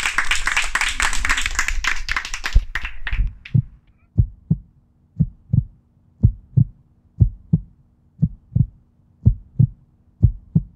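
A small audience applauding for about three seconds, then a heartbeat-style double thump repeating about once a second over a faint low hum.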